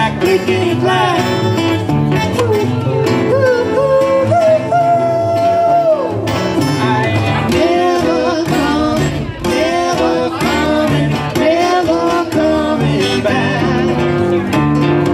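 Live acoustic band music: plucked upright bass and strummed acoustic guitar under a wordless sung melody of held, wavering notes.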